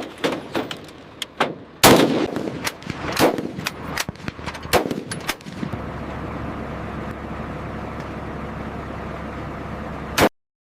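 M240 machine gun firing short, irregular bursts, loudest about two, three and five seconds in. A steady noise then runs for several seconds, and a single sharp shot comes just before the sound cuts off abruptly.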